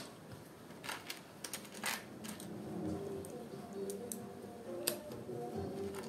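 Small plastic building-kit pieces clicking and tapping as they are handled and pressed together, in irregular sharp clicks, the loudest right at the start.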